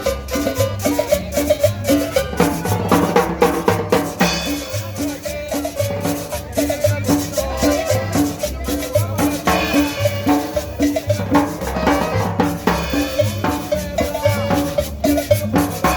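Upbeat Latin dance music with a steady drum and percussion beat over a repeating bass line.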